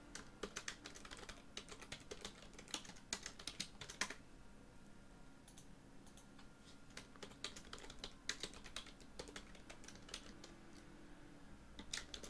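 Faint computer keyboard typing: short bursts of key clicks with pauses between.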